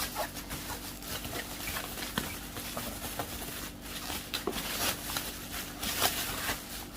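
Packaging being handled and opened by hand: irregular rustling and crinkling with light knocks and scrapes, as a humidifier's box and wrapping are unpacked.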